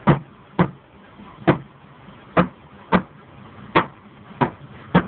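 A series of sharp knocks, about eight in five seconds at uneven intervals.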